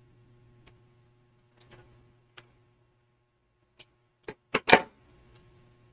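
Small scissors snipping thread close to a crocheted piece: a few faint clicks, then several sharper snips, the loudest about four and a half seconds in.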